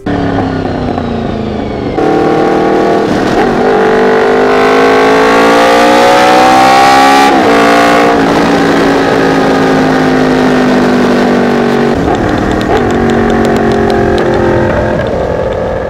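Honda VFR750F's V4 engine revving. Its pitch climbs steadily for about five seconds, drops sharply when the throttle is shut, then winds down slowly.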